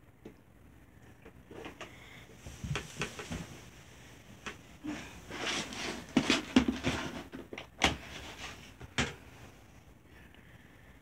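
Scattered plastic clicks, knocks and rustles as a yellow plastic case is handled and its latches snapped open, with two sharp clicks near the end.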